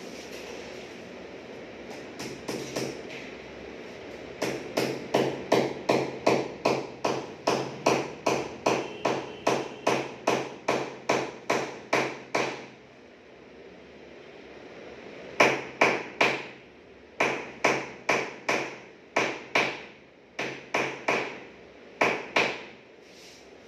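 Hammer blows struck in quick, even succession, about two to three a second, each ringing briefly: a long run of about twenty, a pause of a few seconds, then a second, more broken run.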